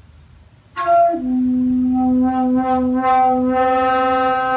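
Shakuhachi, a Japanese end-blown bamboo flute, coming in suddenly under a second in with a breathy attack on a brief higher note, then dropping to a long held low note that gently swells and fades in strength, with audible breath noise.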